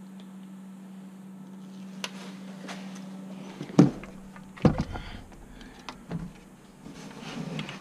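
Hands handling wires and small parts: scattered clicks and knocks, the sharpest about four seconds in and a low bump just after, over a steady low hum.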